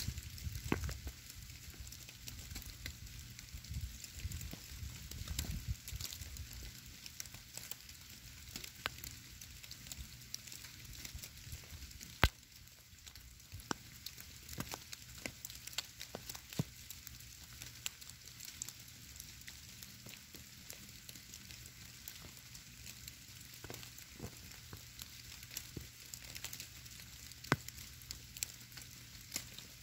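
Snowfall landing in the woods: a soft steady hiss with scattered, irregular little ticks as flakes hit the ground and the stone, one sharper tick about twelve seconds in. A low rumble in the first few seconds.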